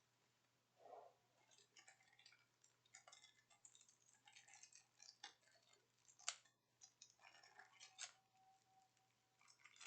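Faint rustling and light clicks of packaging and small merchandise being handled, with a few sharper ticks.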